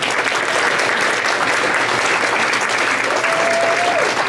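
Audience applauding steadily, with one short held tone rising above the clapping about three seconds in.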